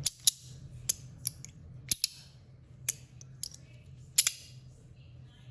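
Sharp metal clicks of a small copper magnetic fidget slider being slid and snapped shut in the hand: about ten clicks at uneven intervals, several in quick pairs.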